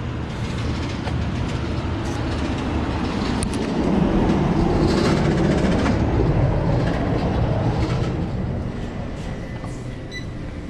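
A large vehicle passing close by, its rumble swelling to a peak about four seconds in and fading away over the last few seconds.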